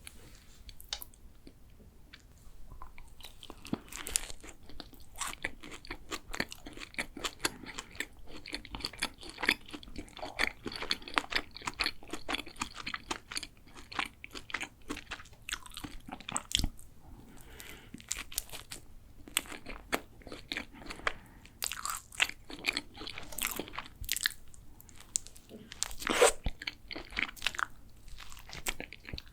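Close-miked crisp crunching and chewing of a layered chocolate pastry: many sharp crackling bites, with the loudest crunch near the end.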